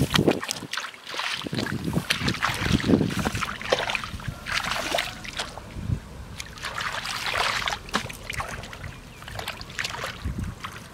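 Shallow water splashing and sloshing in irregular bursts, churned up by people fishing by hand.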